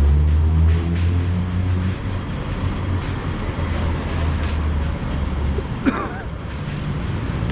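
Low, steady engine hum of a large vehicle in street traffic, which drops away about six seconds in. A brief high squeak comes at about the same moment.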